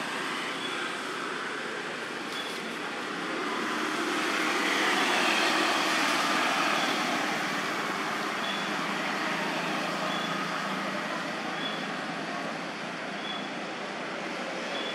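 Steady outdoor background hiss that swells for a few seconds near the middle, with faint short high chirps every second or two.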